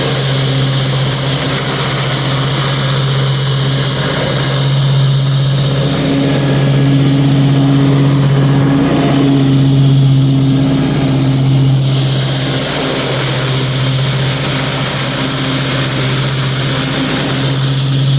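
Craftsman Z6700 zero-turn riding mower's 24 hp Briggs & Stratton engine running steadily while the 54-inch deck cuts grass. It makes an even engine hum with a constant rushing hiss above it.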